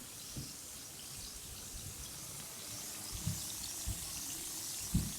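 Bath bomb fizzing in bath water: a steady fine, crackly hiss, with a few soft low thumps.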